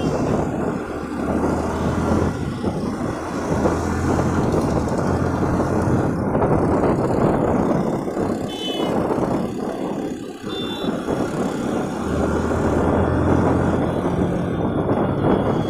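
Bajaj Pulsar motorcycle engine running hard at speed, its drone swelling and easing with the throttle and dipping briefly a little past the middle. Two short high-pitched beeps sound near the middle.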